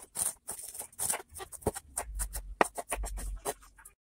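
Kitchen knife slicing on a plastic cutting board: a quick, uneven series of knocks as the blade strikes the board.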